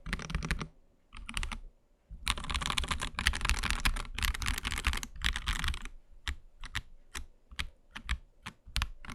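AKKO ACR Pro 75 gasket-mounted mechanical keyboard being typed on: short flurries of keystrokes, a run of fast continuous typing from about two to six seconds in, then slower separate key presses at roughly three a second.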